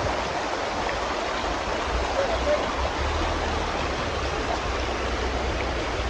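Shallow, fast stream rushing over rocks: a steady, unbroken wash of water with a low rumble underneath.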